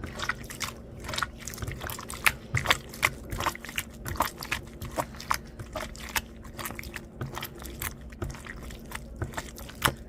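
Slime being squished and kneaded by hand, giving irregular wet clicks and sticky pops several times a second.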